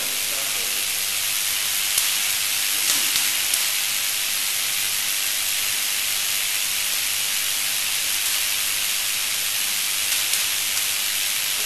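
Corona discharge from a 15 kV corona discharge tube: a steady high hiss with a few faint crackles scattered through it.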